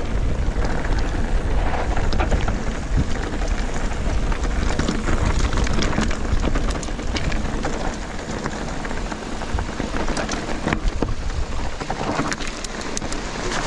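Mountain bike tyres rolling fast over loose gravel and stones, with many small clicks and rattles from stones and the bike, and wind buffeting the handlebar-mounted microphone as a steady low rumble.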